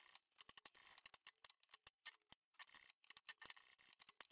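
Near silence, with faint, irregular clicks from a PRO SEW industrial sewing machine stitching slowly through nylon webbing.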